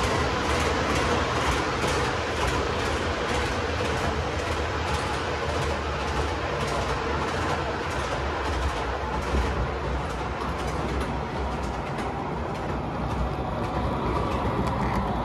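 O gauge model subway train running on the layout's track: steady rolling noise with a run of regular clicks from the wheels over rail joints, the clicks thinning out in the second half.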